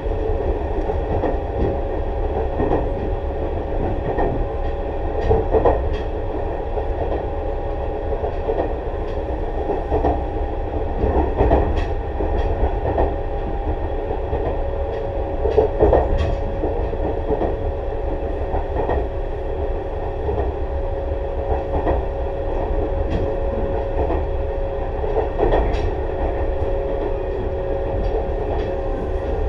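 Tobu 6050 series electric train running at a steady speed: the TM-63 traction motors and gears hum on a steady pitch over a low rumble of wheels on rail, with occasional clicks from rail joints.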